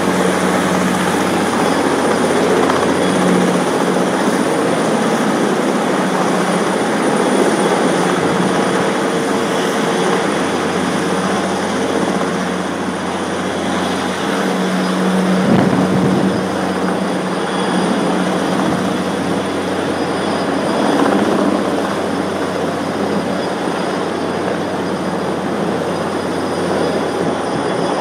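Large helicopter's rotor and turbines running loud and steady overhead while it hovers with a heavy slung load on a long line: a dense roar with a low hum under it.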